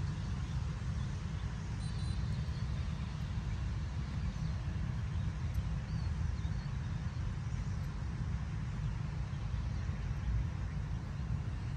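Outdoor ambience of an open square: a steady low rumble, with a faint high chirp about two seconds in and again about six seconds in.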